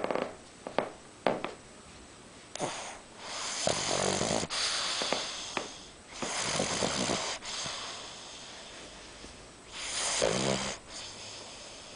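Pug snoring in its sleep. A few short snorts come first, then long, hissing snoring breaths about every three to four seconds, the last with a low rattle.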